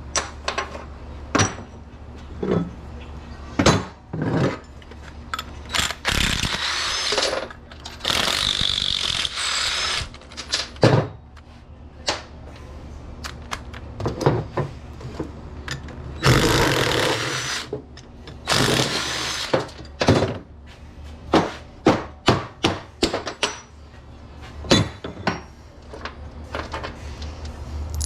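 A power tool runs in short bursts of a second or two, four times, between many sharp metal clanks and clicks as scrap electrical switchgear is unbolted and taken apart.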